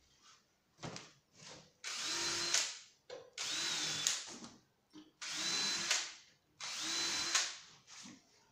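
Cordless drill running in four short runs of about a second each, with small knocks between them: pre-drilling pilot holes for the screws of concealed door hinges.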